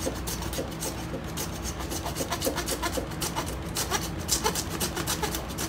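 Hand meat saw cutting through pork spine bone where it joins the ribs, rasping in quick back-and-forth strokes, about three a second.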